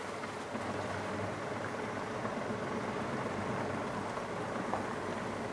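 Suzuki Jimny JB64 driving along a dirt-and-gravel track: its 660 cc three-cylinder turbo engine runs steadily under the tyres' rolling noise.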